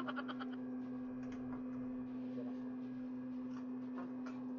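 A steady low hum, with a short quick rattle in the first half second and a few faint clicks later on as a ring light's tripod stand is handled and extended.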